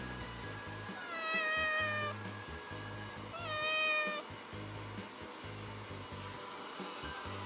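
Kitten meowing twice: two drawn-out calls, about a second in and again about three seconds in, the second slightly louder.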